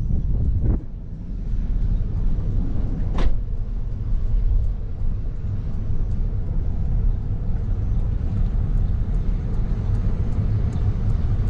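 Car driving slowly, heard from the open passenger window as a steady low rumble of engine and tyres, with a brief whoosh about three seconds in.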